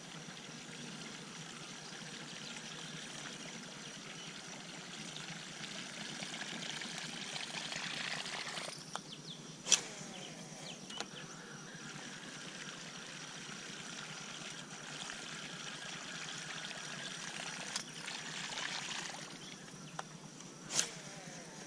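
Water trickling and gurgling with a steady hiss, the sound of a topwater lure being worked back across the water, with a thin high insect drone behind it. Two sharp clicks, one about ten seconds in and one near the end, are the loudest sounds.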